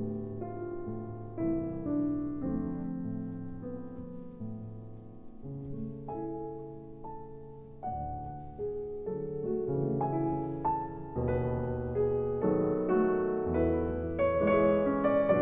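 Slow, gentle solo piano music, with notes sustained and overlapping, growing louder and fuller toward the end.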